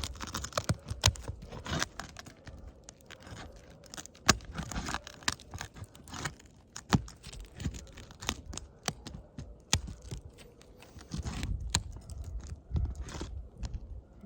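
Asphalt roof shingles being unsealed: scraping, crunching and crackling as the sealant strip is pulled apart and the shingle rubs against the one beneath, with many sharp clicks throughout.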